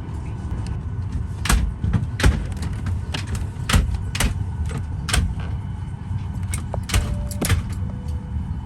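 Steady low rumble inside a Boeing 737-800 cabin at the gate. About fifteen sharp clicks and knocks are scattered through it, with two short steady tones near the end.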